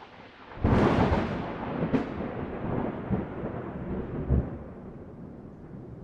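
A loud thunderclap about a second in and a sharp crack at about two seconds, then rolling thunder that slowly fades, over a steady hiss of rain.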